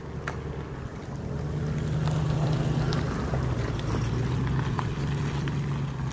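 A steady low engine hum that swells about two seconds in and then holds, over scattered footsteps on gravel and dirt.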